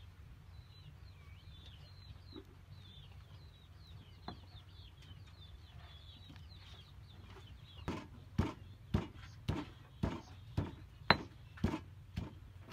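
Stone pestle pounding herbs in a stone mortar, with even, sharp strokes about twice a second from about eight seconds in. Before that, only faint high bird chirping can be heard.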